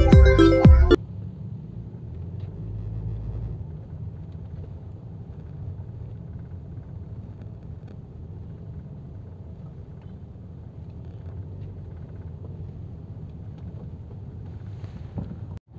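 Background music cuts off about a second in, leaving a steady low rumble of engine and road noise heard from inside a car's cabin as it drives slowly.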